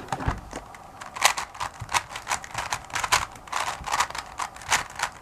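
Plastic 3x3 speedcube being turned by hand: layers clacking as they turn, in an irregular run of sharp clicks about three a second.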